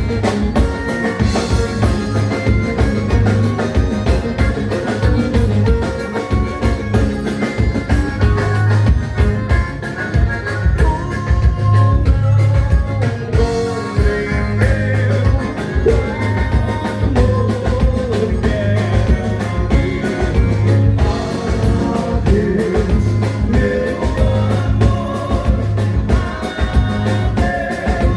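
Live gaúcho dance band playing a vanera, with a steady driving beat from the drums and bass under melodic lines.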